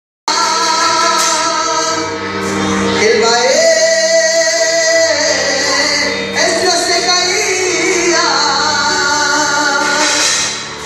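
A man singing into a microphone through a PA. He holds long notes and slides smoothly up and down between pitches in a melismatic style.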